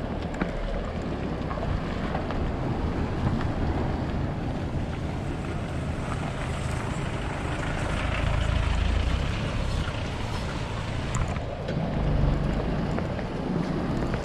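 Wind buffeting the microphone with a steady low rumble while riding.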